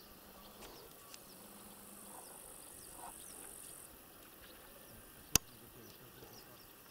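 Faint high-pitched insect trill, cricket-like, over quiet rural outdoor ambience; the trill stops about four seconds in. A single sharp click about five seconds in.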